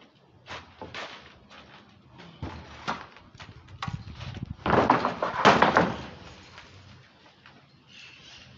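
Wooden knocks and scraping as a long timber board is handled on a plank scaffold. There are a few separate knocks at first, then a louder run of rapid knocking and scraping about halfway through.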